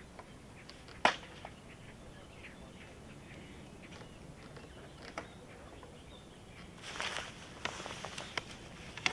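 Quiet outdoor ambience with a few small ticks and faint short chirps. One sharp click comes about a second in, and there is a brief rush of rustling noise near the end.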